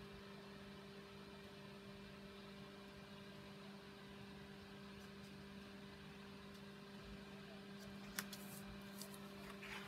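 Near silence with a steady low electrical hum. Near the end, a few light clicks and a brief rustle of card stock being handled.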